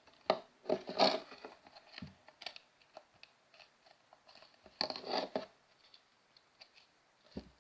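Fluffy slime being squeezed and stretched by hand, giving irregular short bursts of crackling, sticky noise, the loudest about a second in and again around five seconds in.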